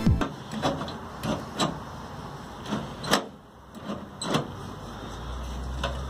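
Scattered clicks and light knocks of metal latch rods and their plastic retaining clips being worked loose inside an opened truck tailgate, about a dozen over several seconds. A low steady hum comes in about five seconds in.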